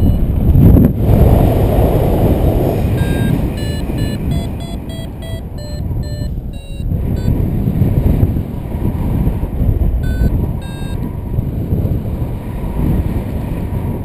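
Airflow rushing over the microphone in paraglider flight, with an electronic variometer beeping in quick short tones of changing pitch from about three to seven seconds in and again briefly around ten seconds. The beeping signals that the glider is climbing.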